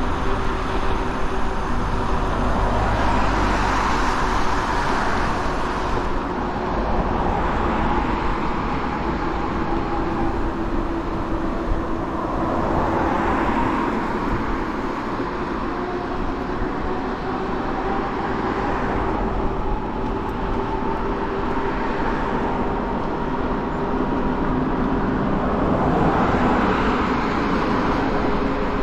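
Riding an e-bike along a road: steady wind and tyre noise, with a thin whine from the Ride1Up Cafe Cruiser's rear hub motor that drifts slowly in pitch with speed. Cars in the next lane pass close by about four times, each one swelling and fading.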